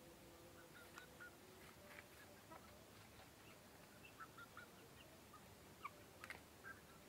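Faint poultry calls: many short, scattered chirping calls from chickens, with a couple of sharp clicks about a second in and again near the end.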